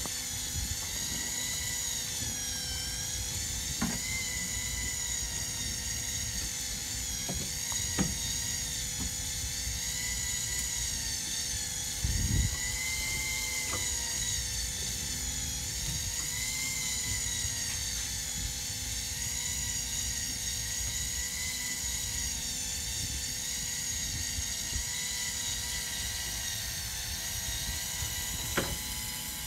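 Electric fishing reel winding in a hooked fish, its motor whining with a pitch that slowly wavers up and down as the load on the bent rod changes, over a low rumble. A few sharp knocks, and a louder low thump about twelve seconds in.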